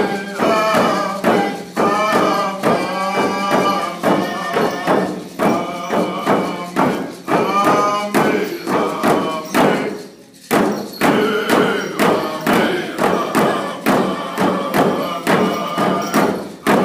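Namgis (Kwakwaka'wakw) ladies' dance song: a group of singers chanting together over a steady beat on hide hand drums. About ten seconds in the singing and drumming stop briefly, then start again.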